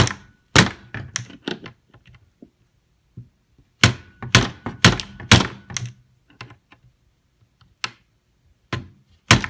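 Hammer striking a steel driver bit held in a stripped screw head, sharp metal taps in three quick bursts of several blows each, some with a brief ring. The bit is being pounded in to bite into the stripped-out screw.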